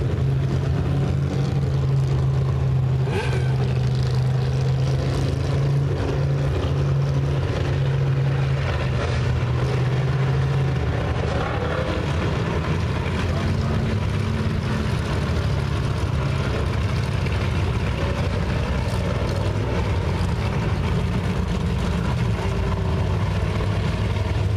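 Race car engines running as a pack of dirt-track cars circles the oval, heard as a steady low drone that drops in pitch about eleven seconds in.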